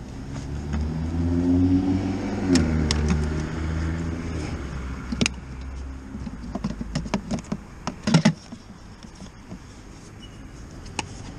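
A car drives past, its engine note swelling and then dropping in pitch as it goes by. It is followed by clicks and knocks from the motorcycle's plastic hard side case being unlatched and opened and the charging cables and plugs inside being handled. The loudest is a pair of sharp knocks about eight seconds in.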